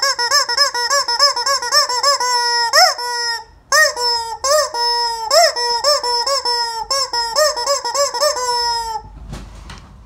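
Squeaky rubber chicken toy being squeezed over and over: a fast run of short honking squeaks, about three a second, with a few longer ones and a brief pause partway. The squeaks stop near the end, followed by a short rustle of handling.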